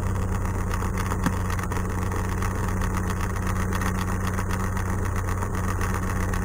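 Cessna 182's six-cylinder piston engine and propeller idling steadily, a constant low drone heard from inside the cockpit.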